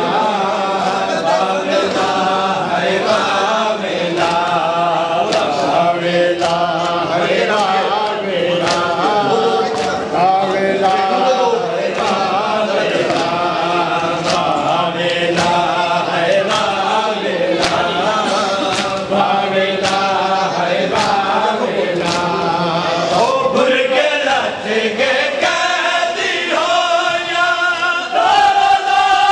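A group of mourners chanting a lament together in a Muharram matam procession, over a steady beat of sharp slaps from chest-beating (matam).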